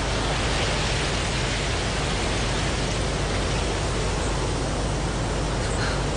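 Steady, even hiss of noise with no changes or distinct events.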